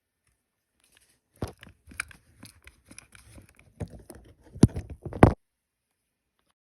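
Hardened, rock-hard slime crackling and crunching as it is handled, a run of irregular crackles ending in two louder cracks.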